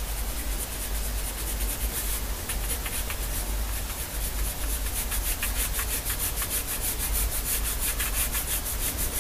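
Graphite pencil scratching across drawing paper in quick back-and-forth hatching strokes, several a second, settling into a steady rapid rhythm in the second half.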